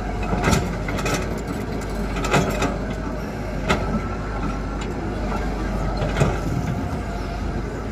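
Tata Hitachi ZAXIS 120 excavator's diesel engine running steadily under load as it loads murrum into a tipper truck. A few sharp knocks of stones and the bucket come through over the drone.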